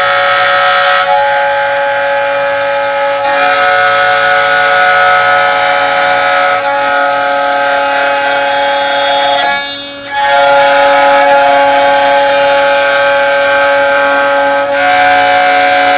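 CNC router spindle running with a steady whine while its cutter works wood, with cutting hiss that swells and fades every few seconds as the bit moves through the material. The sound dips briefly about ten seconds in.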